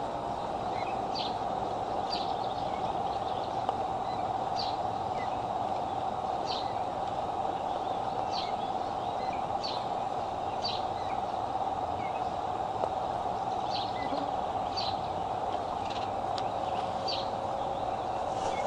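A bird's short, high chirp repeated about once a second, over the nest camera microphone's steady hiss.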